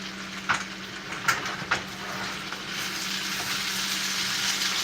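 Potatoes and onions sizzling in a frying pan, with three light clicks of a utensil against the pan in the first two seconds; the sizzle grows louder about halfway through. A steady low hum runs underneath.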